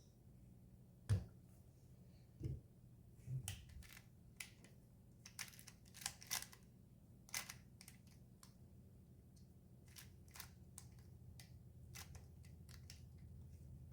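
A 3x3 speed cube being turned by hand, its layers clicking and knocking in short irregular bursts while the cross is solved. The heavier knocks come in the first few seconds, with lighter clicks after, over a faint steady hum.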